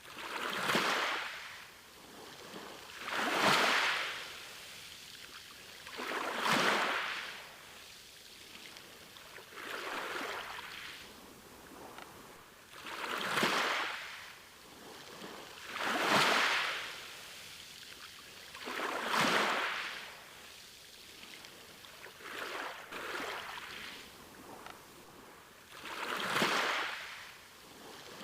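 Sea waves breaking on a beach, each one swelling to a hiss and fading away, about one every three seconds.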